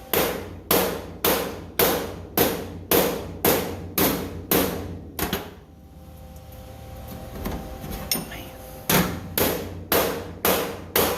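Hammer blows on the sheet-steel floor pan of a Ford F-100 pickup, struck steadily about two times a second. The blows pause for about three seconds partway through, then resume.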